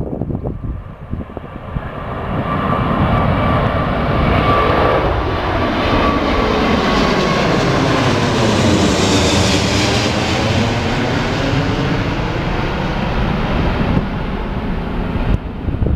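Airbus A380's four jet engines at take-off power as the airliner climbs out directly overhead: the jet noise builds over the first couple of seconds, is loudest and brightest as the aircraft passes over about eight to ten seconds in, with a swirling, phasing sweep through the sound, then eases slightly as it moves away.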